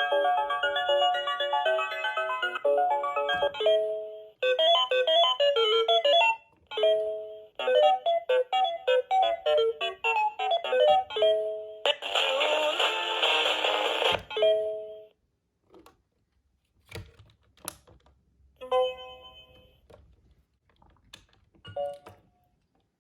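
Room Tech Beingz alarm clock toy playing electronic beeping tunes through its small speaker, short notes stepping up and down, with a harsh hissy burst of about two seconds a little past halfway. The tunes stop about two-thirds of the way through, followed by a few clicks and short snatches of tones.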